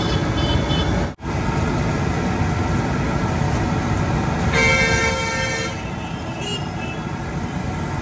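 Busy street traffic noise with a vehicle horn honking once for about a second, a little past the middle. The sound drops out for an instant about a second in.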